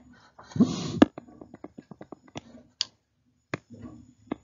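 A string of sharp, irregular clicks and taps from a stylus on a pen tablet as handwriting is erased and rewritten, with a brief louder rush of noise about half a second in.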